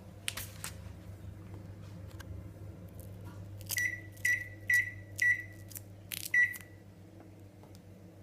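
Microwave oven keypad beeping as its buttons are pressed: four short, same-pitched beeps about half a second apart, then one more a second later, each starting with a button click.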